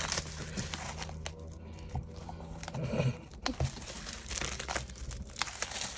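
Album packaging crinkling and being torn open by hand, with scattered sharp clicks and rustles.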